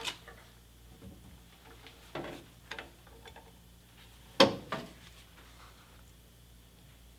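Several short metallic knocks and scrapes as a steel part and tools are handled, the loudest about four and a half seconds in, over a steady low hum.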